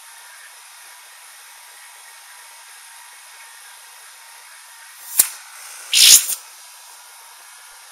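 Air hissing in through the brass valve of an evacuated glass bell jar as it is opened to let air back in: a short hiss about five seconds in, then a louder, slightly longer one about a second later, over a faint steady hiss.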